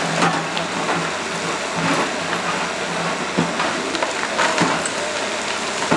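Tracked excavator working stone rubble: a dense clatter and crunch of stones and masonry scraped and dropped by its bucket, over a low diesel engine drone that fades out about halfway through.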